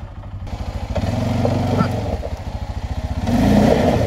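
ATV engine running at idle with a steady pulse, its pitch and level rising briefly twice.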